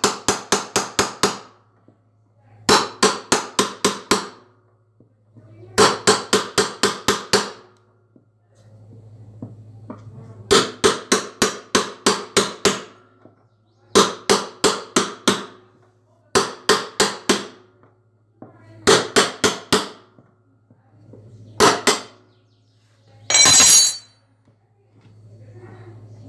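Hammer blows on metal, in quick runs of five to eight ringing strokes at about five a second with short pauses between runs: typical of knocking the old drum bearings out of a washing machine. One longer, harsher noise comes near the end, over a steady low hum.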